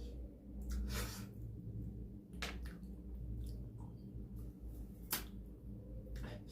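Close-miked eating sounds: chewing with a few sharp mouth clicks and smacks, the loudest about five seconds in, over a steady low hum.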